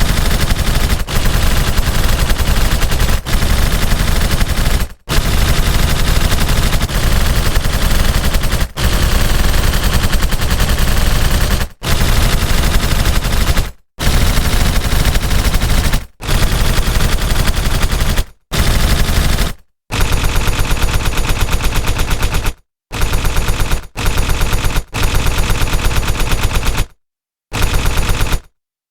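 Stylized machine gun sound effect: rapid automatic fire in repeated bursts of a few seconds each with short breaks, the bursts getting shorter and choppier toward the end before stopping.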